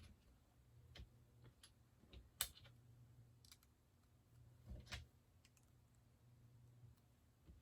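Faint, scattered clicks of plastic Lego bricks being handled and pressed together, over a low hum.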